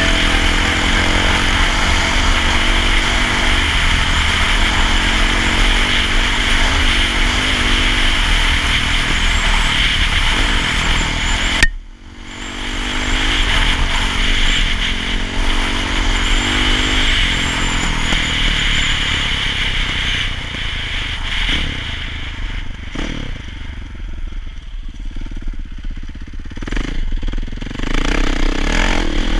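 KTM 525 EXC's single-cylinder four-stroke engine running under way, its pitch rising and falling with the throttle. The sound drops out abruptly for a moment about twelve seconds in, then comes back. Toward the end it runs quieter at lower revs.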